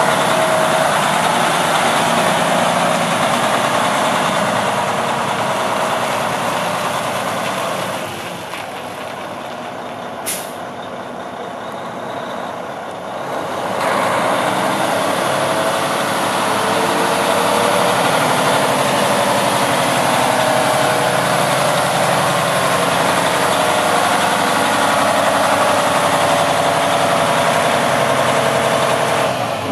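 Diesel engine of a 2014 Freightliner Cascadia tandem-axle tractor running as the truck drives, quieter for a few seconds partway through, then louder again. A single short, sharp hiss of released air comes about ten seconds in.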